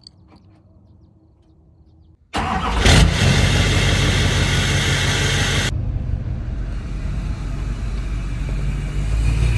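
Straight-piped Duramax turbodiesel V8 with a 5-inch exhaust starting up: it fires suddenly a little over two seconds in with a loud burst, runs with a loud hiss for about three seconds, then settles into a steady low idle.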